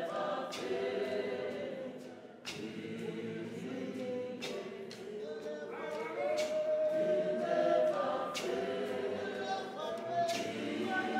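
Zion church choir of men and women singing gospel a cappella, with a few sharp knocks at irregular intervals.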